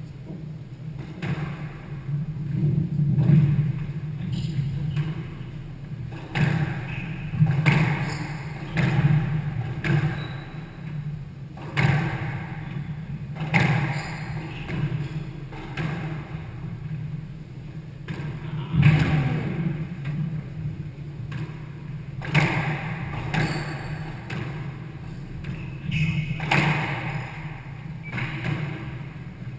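Squash rally: the rubber ball cracks off the players' rackets and thuds against the court walls in a steady back-and-forth exchange of sharp knocks, roughly one every second or so.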